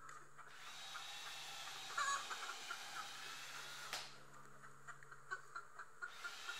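Cordless drill boring pilot holes into a wooden frame board: the motor runs for about three seconds, stops with a click about four seconds in, and starts again near the end. A brief louder burst comes about two seconds into the first run.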